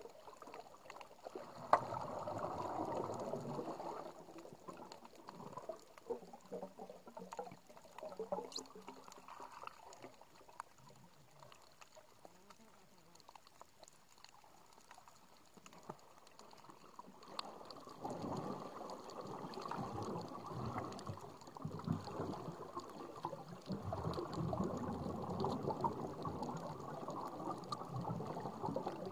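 Underwater ambience on a shallow reef: muffled rushing and sloshing of moving water that swells about two seconds in, dies down through the middle, and builds again for the last ten seconds, with faint scattered clicks.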